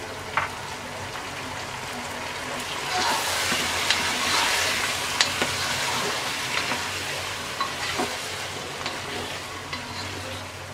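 Chicken, spices and freshly added grated tomato sizzling in oil in a cooking pot, with a spoon scraping and knocking against the pot as it is stirred. The sizzle swells for a few seconds in the middle.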